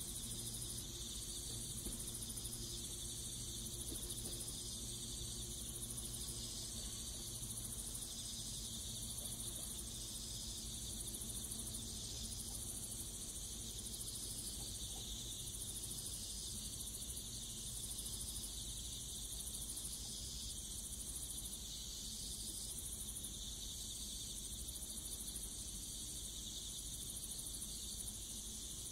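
Insects chirping in steady, regular pulses, over a faint low hum.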